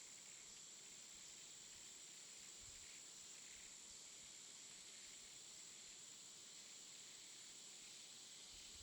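Near silence: a faint steady hiss with a thin, high, unchanging whine.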